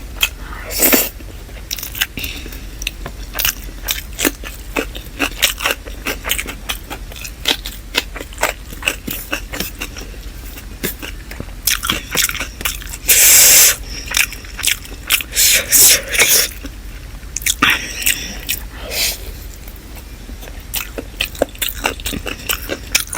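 Close-miked eating of chicken biryani and salad: steady chewing with many small wet mouth clicks, broken by several louder crunchy bites, the loudest just after the middle.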